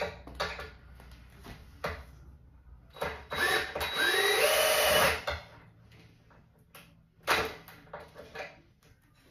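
Yellow cordless drill running into wood for about two seconds, its motor pitch rising as it spins up. Light clicks and knocks of wooden parts being handled come before it, and a single knock follows.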